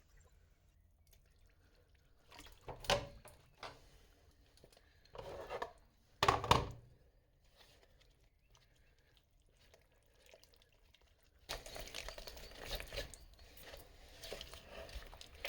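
Craft plaster and cold water being handled and mixed in a container: a few separate knocks and clatters early on, then a few seconds of continuous stirring and scraping in the mix near the end.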